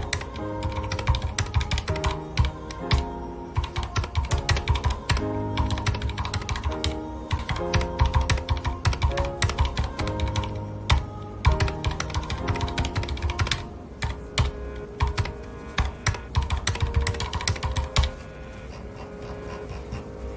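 Fast typing on a mechanical keyboard with red linear switches, keys clacking in quick runs, over soft background music. The typing breaks off about 18 seconds in.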